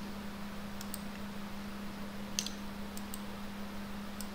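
A few faint, scattered computer clicks as the presentation slide is advanced, over a steady low electrical hum and hiss.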